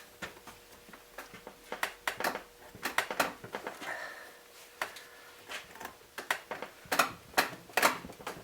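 Knipex Cobra pliers, 250 mm, clicking and knocking in irregular metal taps as they are set and clamped onto a hardened M12 socket head cap screw and wrenched to break it loose; the loudest knocks come about seven to eight seconds in.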